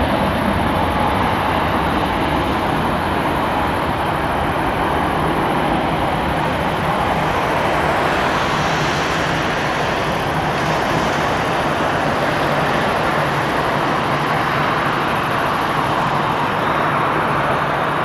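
Jet airliner engines at takeoff power, a steady roar.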